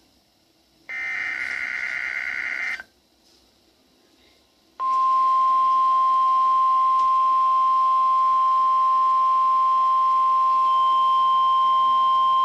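Weather radio alert tones: a burst of warbling data tones (the SAME digital header) lasting about two seconds. After a short gap, the steady single-pitch 1050 Hz warning alarm tone starts about five seconds in and holds.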